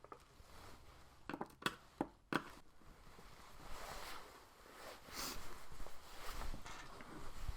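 Small sharp clicks and taps, then scraping and rustling: a screwdriver and tiny screws being handled inside an open laptop.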